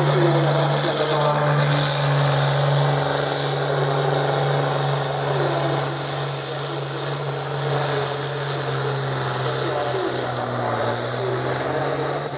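Pulling tractor's engine running at high, steady revs during a pull, a loud, even drone.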